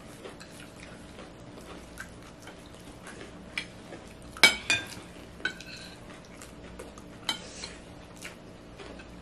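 Metal spoons clinking and scraping against ceramic plates as people eat, in scattered light taps with one louder ringing clink about four and a half seconds in.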